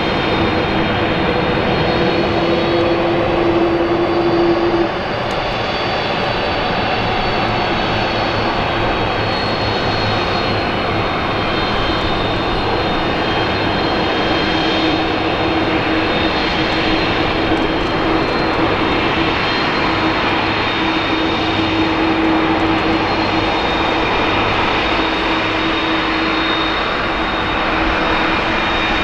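McDonnell Douglas MD-11F freighter's jet engines running at low taxi power: a steady rushing sound with a thin high whine and a low hum held throughout.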